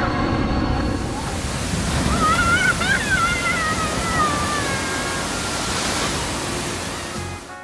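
Rushing water and a heavy splash as a loaded water-ride raft plunges down the drop into the pool. A long, wavering scream rises and falls in the middle.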